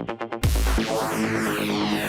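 Drum and bass music: a fast repeating build-up roll ends in a brief drop-out, and the drop lands about half a second in with a heavy sub-bass hit and the full track kicking in.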